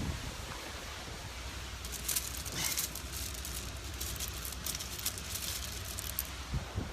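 Wind rumbling on the microphone over steady outdoor noise, with a run of light crackling rustles from about two to six seconds in.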